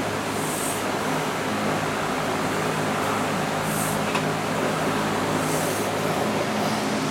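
Steady hum of a large electric fan running, with three short high hisses over it.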